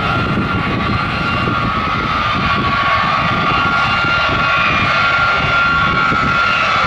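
Boeing B-52 Stratofortress's eight jet engines running at high power as the bomber rolls down the runway: a steady rushing noise with a high whine on top, growing slightly louder.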